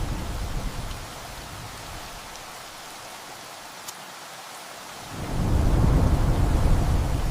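Steady rain with rolling thunder: a deep rumble dies away over the first second or so, leaving the rain hiss, and a new rumble of thunder swells up about five seconds in.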